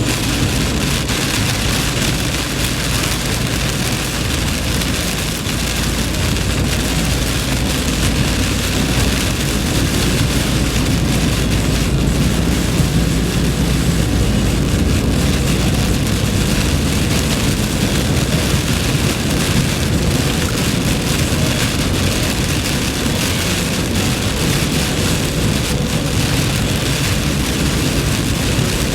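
Heavy rain pouring steadily, with the low rumble of a car driving through it.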